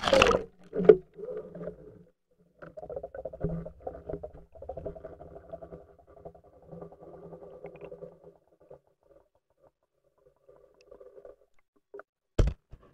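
Underwater fishing camera in its waterproof housing going into the water through the ice hole: a splash at the start, then muffled rubbing and knocking of the housing for several seconds, fading out, with one sharp knock near the end.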